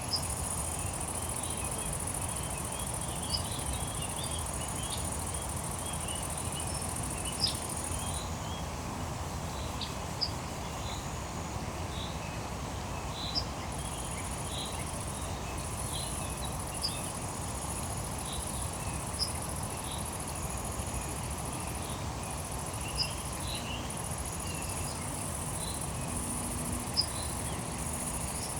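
Insects trilling in a high, steady shrill that drops out for several seconds in the middle, with short chirps scattered throughout, over a low steady background noise.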